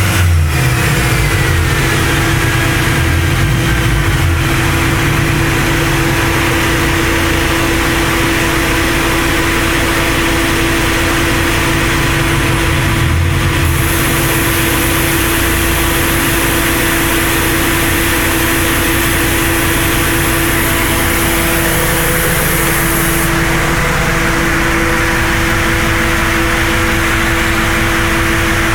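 Subaru EJ207 turbocharged flat-four running steadily through an aftermarket exhaust, with a constant droning tone.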